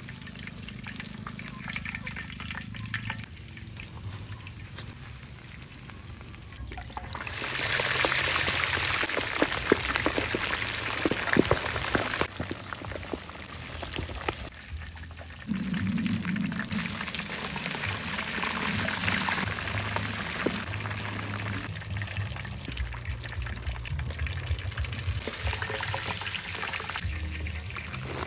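Pig's head deep-frying in a wok of hot oil: sizzling, bubbling and crackling, loud from about seven seconds in, with a short dip in the middle, over background music.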